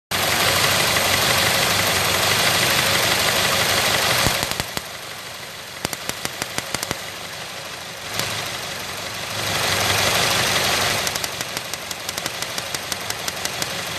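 Ford Escape engine running with a misfire on cylinders 1 and 4: a loud steady hiss that drops about four seconds in and swells again around eight to eleven seconds, with rapid regular ticking in the quieter stretches.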